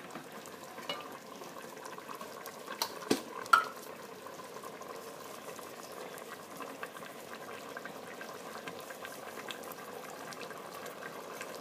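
Squid and potato stew boiling in a stainless steel pot, a steady bubbling. A few sharp clicks come about three seconds in, the loudest just after three and a half seconds.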